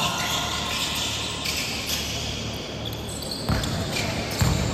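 Basketball dribbled on a hardwood gym floor, with a few heavy bounces near the end over the general noise of the hall.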